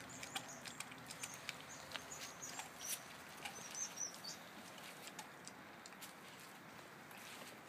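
A Rottweiler chewing on a lamb rib bone: a run of irregular, sharp crunches and clicks from its teeth on the bone, coming thicker in the first half and thinning out later.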